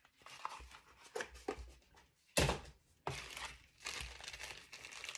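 Jewelry packaging crinkling as it is handled and opened, in a string of short rustles, the loudest and sharpest about two and a half seconds in.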